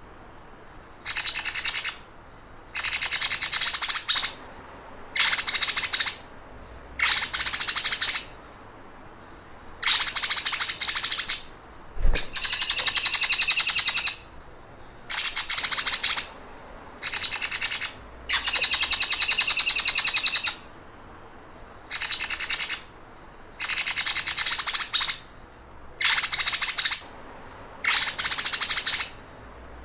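A songbird's rapid, rattling trill of the kind keepers call the 'sewing machine' (mesin jahit) song. It comes in about a dozen bursts of one to two seconds each, with short pauses between them.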